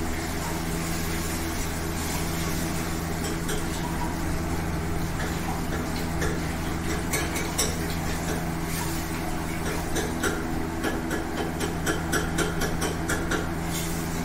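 Steel pots and utensils clinking and knocking at a gas stove during cooking, in quick irregular clinks that grow busier after the first few seconds, over a steady low mechanical hum.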